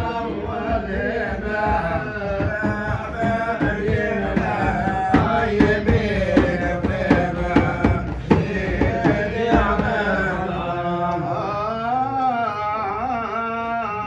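Sufi madih praise song: a male voice sings an ornamented, wavering melody over drum beats. The beats are densest in the middle and thin out after about ten seconds, leaving the voice sustaining a wavering line.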